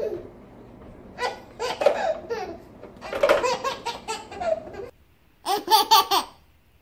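A baby laughing in repeated bursts of giggles and belly laughs; after a short pause, another baby laughs in a quick run of laughs near the end.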